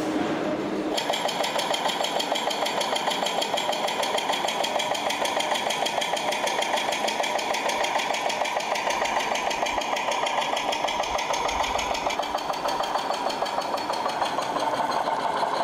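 Engine sound of a radio-controlled model vehicle running steadily with a fast, even chugging pulse, starting about a second in.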